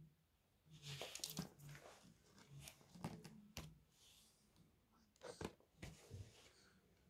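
Faint scattered clicks and scuffs from a small dog, a chihuahua, shifting on a laminate floor close to the microphone. The loudest are about a second in and near five and a half seconds.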